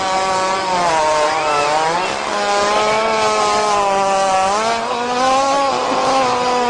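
A long, drawn-out buzzy fart sound at a steady pitch that steps down and then up again a couple of times.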